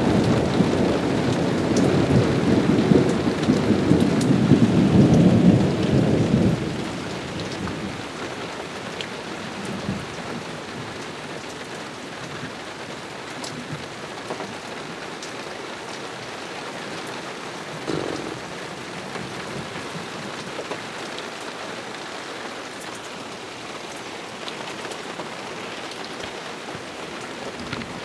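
Thunder rumbling loudly for the first six seconds or so, fading into the steady hiss of heavy rain falling, with a short low thump about eighteen seconds in.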